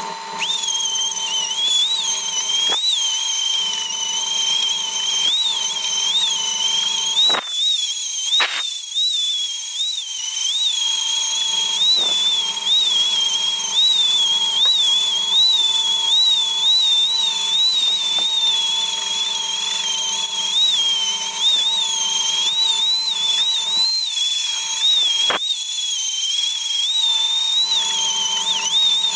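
High-speed handheld rotary tool with a small sanding drum, grinding and polishing a steel ball held in a vise. It makes a high-pitched whine that wobbles up and down in pitch as the bit is pressed on and eased off, with a few sharp ticks scattered through.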